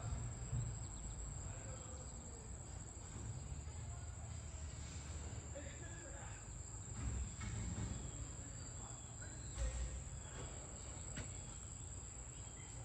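Steady high-pitched insect chirring, like crickets, over a low outdoor rumble.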